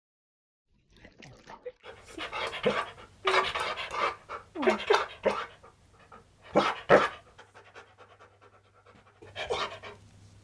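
Husky–malamute dog panting and making a string of breathy huffs and short vocal grumbles, some sliding down in pitch: the dog's 'talking' noises.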